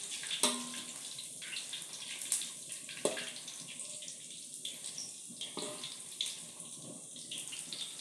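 Tempeh and spices sizzling steadily in hot oil in a pan, as a spatula stirs them and knocks against the pan several times.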